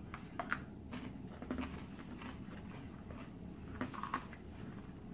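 Quiet chewing of crunchy graham dipping sticks, with a few faint clicks and rustles from the plastic snack cups being handled.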